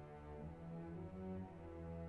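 Orchestral background music with held notes.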